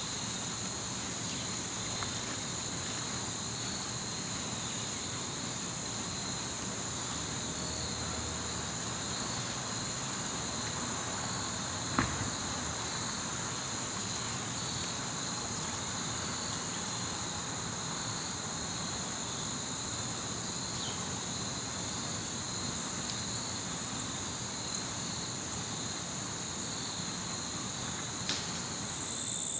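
Crickets trilling steadily at a high pitch, two trills overlapping, over a faint background hiss. A single sharp click about twelve seconds in.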